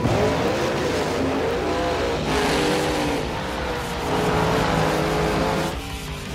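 Two drag-race street cars, a Chevy II and an El Camino, launch and accelerate at full throttle. Their engines rev up and drop back several times, with tire noise from the El Camino's tires spinning and smoking.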